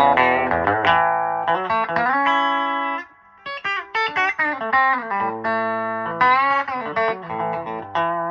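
Electric guitar played through a 1960s Elk Custom 30 valve amplifier (EL84 power section) from a Telecaster's bridge pickup. It plays a single-note lick with bent notes, with a brief gap about three seconds in, and ends on a held ringing note.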